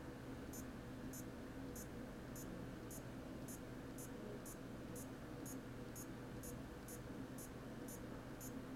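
Faint, high ticks at an even pace of about two a second as a Garmin fenix watch's button is pressed over and over to scroll through a menu list, over a low steady hum.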